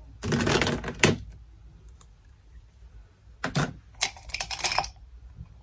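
Makeup items and brushes being rummaged through and handled: two bouts of clattering and rattling, the first ending in a sharp click about a second in, the second starting about three and a half seconds in.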